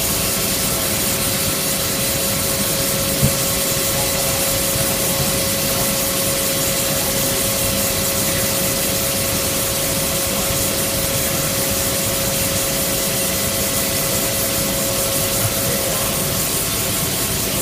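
Palmary OCD 3240P CNC cylindrical grinder running: a steady hiss of grinding, with a steady tone that fades out near the end and a single click about three seconds in.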